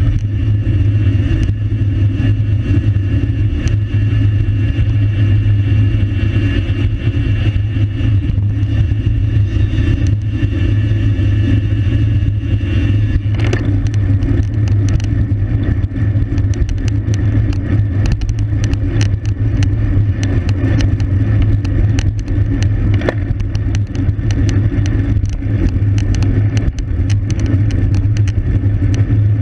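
Wind rushing over the microphone of a camera riding on a racing bicycle at speed, with road and tyre noise beneath it. A thin high whine stops about halfway through, and frequent short clicks come through in the second half.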